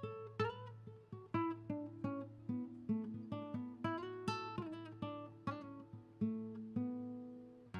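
Background music: acoustic guitar picking single notes, two or three a second, each ringing out and fading.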